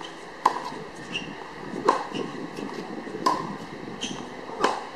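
Tennis balls struck with rackets in a groundstroke rally: four sharp pops, about a second and a half apart.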